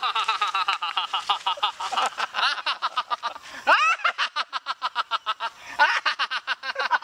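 A man laughing in rapid ha-ha pulses, breaking off a little past halfway with a sharp rising cry before laughing on.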